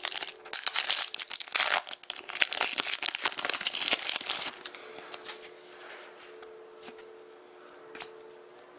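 Crinkling and rustling of trading-card packaging as hockey cards are handled, dense for about the first four and a half seconds, then fainter with a few light clicks over a faint steady hum.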